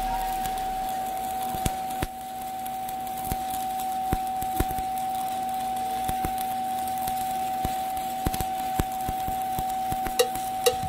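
Stick (shielded metal arc) welding on a steel pipe joint: the arc crackles with scattered sharp pops, more of them near the end, over a steady hum.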